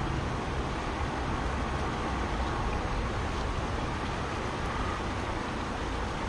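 Steady rush of a fast-flowing river running past a concrete bank, with a low rumble underneath.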